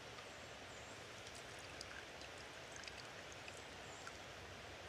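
Faint, irregular dripping of brewed coffee from a filter funnel into an enamel cup, small ticks scattered over a steady hiss.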